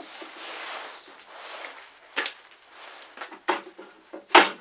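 A heavy steel machine slide being slid off the slide beneath it and set down: a scrape of metal on metal, then several clunks, the loudest near the end.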